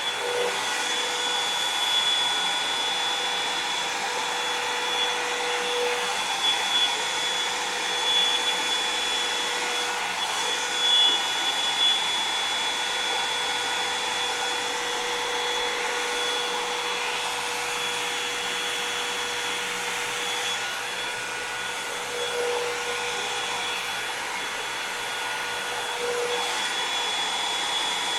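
Revlon One-Step hair dryer and volumizer, a hot-air brush, running steadily: a rushing blow of air with a steady whine over it, swelling slightly now and then as it is worked through the hair.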